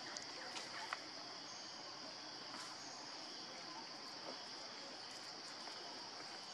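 Steady, high-pitched insect chorus, with a few faint clicks in the first second.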